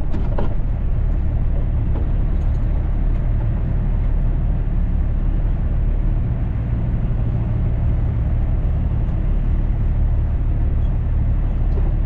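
Cummins ISX diesel of a Kenworth W900L semi running as the truck creeps along at low speed, heard from inside the cab as a steady low drone.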